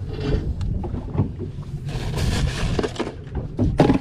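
Brown paper and crushed ice rustling and crunching as fish are shifted in a cooler, with a heavier knock near the end, over a steady low rumble.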